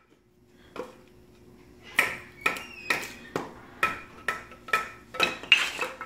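A wooden board used as a baton knocking on the spine of a Mora knife, driving the blade through a wooden spoon blank to split off waste wood. One knock comes about a second in, then about ten sharp knocks at roughly two a second, each with a short ring.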